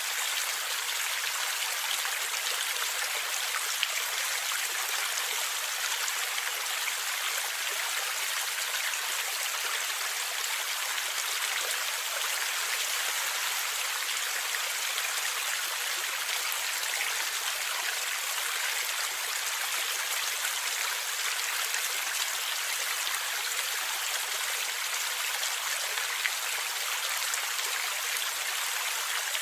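Stream water gurgling and rushing steadily, an even hiss sprinkled with small splashing ticks.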